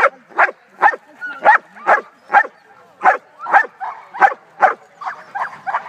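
A black-and-tan shepherd dog barking over and over in a steady rhythm, about two barks a second, the last few barks a little weaker.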